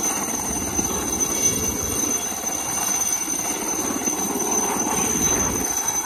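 Two helicopters flying low overhead, giving a steady rapid chop of rotor blades together with engine noise.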